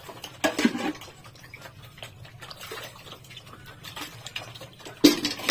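Water dripping and sloshing as it is scooped from a metal bucket with a plastic mug, with a short grunt about half a second in and a louder splash near the end.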